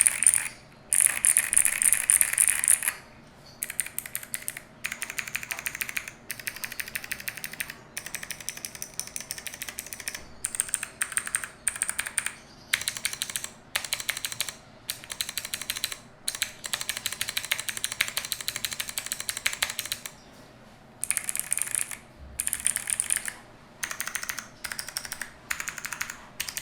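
Typing on a mechanical keyboard with Akko Creamy Cyan clicky switches, in a Monsgeek M1 V3 with cherry-profile PBT double-shot keycaps: a sharp click on every keypress, in fast runs of typing broken by short pauses. The typing is louder at the start and again about 21 seconds in.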